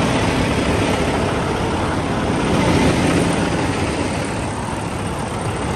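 Peterbilt semi-truck's diesel engine idling steadily, a low, even hum.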